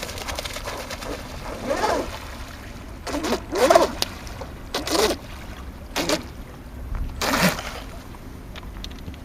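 Several short voices calling out from a distance, the loudest about halfway through, over a steady low rumble.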